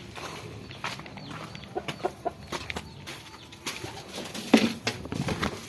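Poultry clucking in short calls amid scattered clicks and knocks, with one louder knock about four and a half seconds in.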